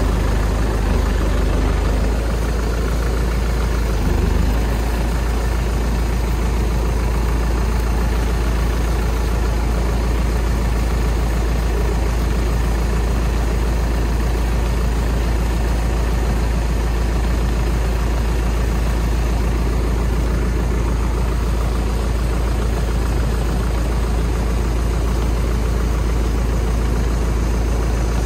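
An engine idling steadily, with a deep, constant low hum.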